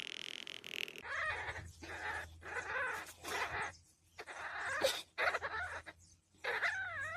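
A steady hiss for about the first second, then a kitten with a slice of sausage in its mouth giving a run of short cat cries that rise and fall in pitch, roughly one every half second to second.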